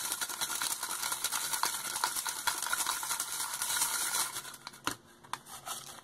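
Folded paper slips being shaken in a plastic cup: a dense rustling rattle that stops about four seconds in, followed by a single sharp tap.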